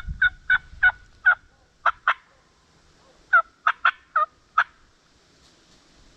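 Turkey yelping: a run of short, two-note yelps, each breaking from a higher to a lower note, about seven in the first second and a half, then a pause, then about five more near the middle.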